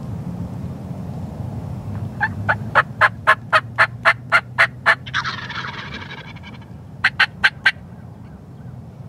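Wild turkeys calling: a quick run of about a dozen sharp yelps, about four a second, then a gobbler's rattling gobble lasting about a second and a half, then four more quick yelps.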